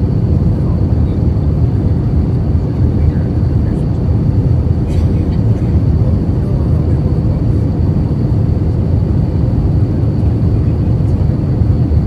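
Steady cabin roar of an Airbus A321-231 in flight, engine and airflow noise heard from inside the passenger cabin, low and even, with a thin steady high whine above it.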